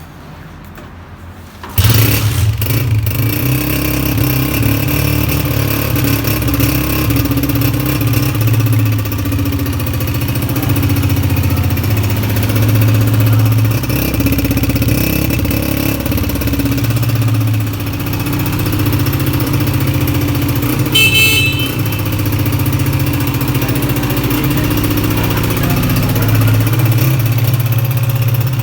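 A 2022 Honda CG 125's single-cylinder four-stroke engine is kick-started about two seconds in and runs steadily, with small rises and falls in engine speed. A brief high-pitched beep sounds about three-quarters of the way through.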